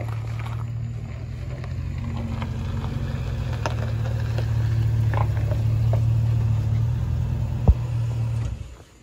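A steady low mechanical hum, like a motor or engine running, that slowly grows louder and cuts off suddenly near the end. There are light ticks throughout and one sharp knock shortly before it stops.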